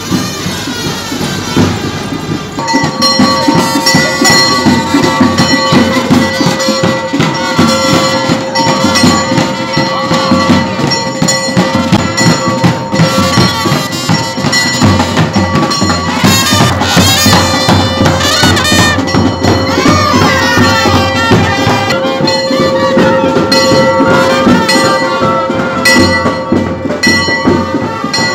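Marching procession band of bagpipes and drums playing: a melody over one unbroken held drone, with a steady drum beat underneath. The drone comes in about two and a half seconds in.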